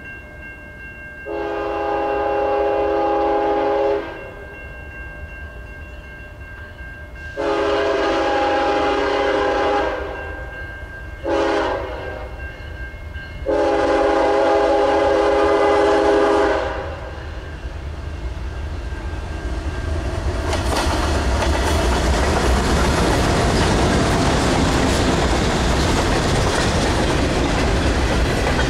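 Diesel freight locomotive's multi-chime air horn sounding the grade-crossing signal: long, long, short, long. From about two-thirds of the way in, a double-stack container train passes close by, with a steady loud rumble and the clicking of wheels over the rails.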